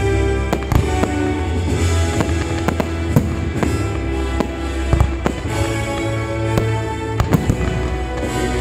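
Fireworks going off in irregular sharp bangs and cracks over music with sustained low notes.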